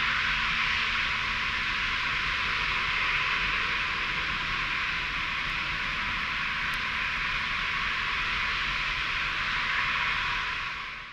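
Antonov An-124-100's four D-18T turbofans running at idle while the freighter waits lined up for takeoff: a steady jet hiss that drops away abruptly at the very end.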